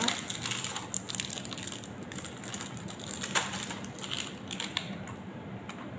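Dark chocolate pieces rattling and clattering in a small candy box as it is shaken and tipped out into a bowl of cookie dough. The clicks come irregularly, with one sharp click about three and a half seconds in.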